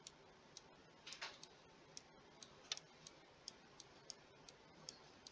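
Near silence broken by faint, short, irregular clicks, about two a second, from a computer input device as a shape is dragged with the move tool.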